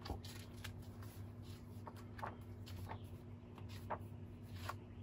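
Tarot cards being shuffled and handled: a string of light, irregular card snaps and slides over a faint steady hum.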